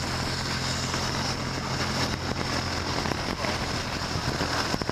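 Piston engine and propeller of a single-engine light aircraft droning steadily, heard from inside the cockpit.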